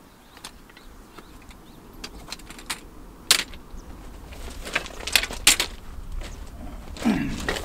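Metal-framed folding camp chair being unfolded and set up: a run of sharp clicks and rattles as the frame's joints swing open and lock, the loudest about three and five and a half seconds in. A short low falling sound follows near the end.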